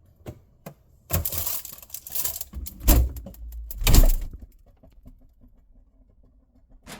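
Object-handling noises: two light clicks, rustling and scraping, then two heavy thumps about three and four seconds in, and a few faint ticks.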